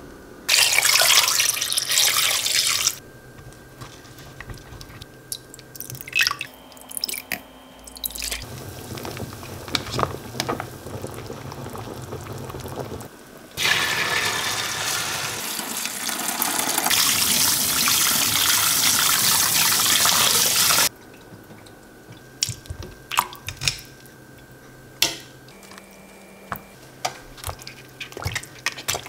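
Water from parboiled pork back-bones poured out of a stainless stockpot through a mesh strainer into a stainless steel sink: a steady rush of about seven seconds near the middle that stops suddenly, after a shorter rush of water near the start. Light clicks and knocks of pot and food handling come between and afterwards.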